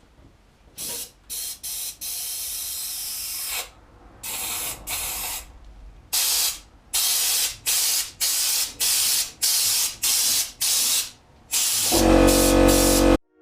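Compressed-air underseal gun spraying stone-chip coating in a dozen or so hissing bursts of varied length. The last burst, near the end, is the longest and loudest and has a deeper rumble.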